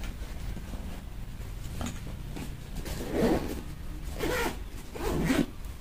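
Backpack pocket zipper being pulled shut in a few short pulls, mostly in the second half, over handling noise from the bag.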